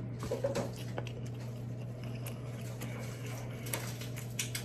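Close-miked chewing of king crab meat, with scattered small wet clicks and smacks over a steady low hum.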